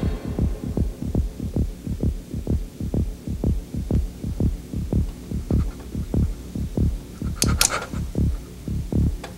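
Low, rapid throbbing pulse like a racing heartbeat, a heartbeat sound effect on a film soundtrack, about two to three beats a second. Two sharp clicks come close together about seven and a half seconds in.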